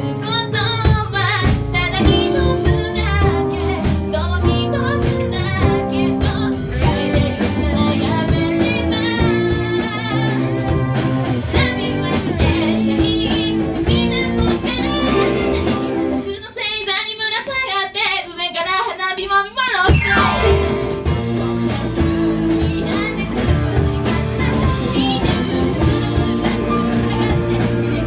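A live band of drums, bass and guitar plays a pop-rock song while a singer sings over it. About sixteen seconds in, the band drops out for a few seconds and leaves the voice nearly alone, then the full band comes back in.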